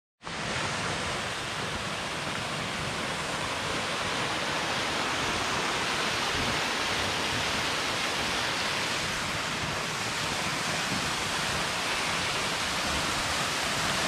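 Small waterfall rushing: a steady, even hiss of falling water.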